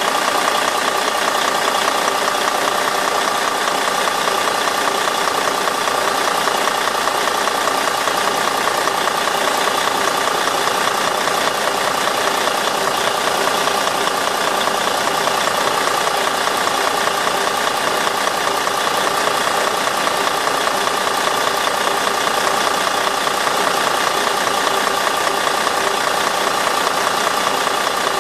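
A large highway coach's 13-litre straight-six turbodiesel idling steadily, heard close at the open engine bay, with a steady high whine over the engine note.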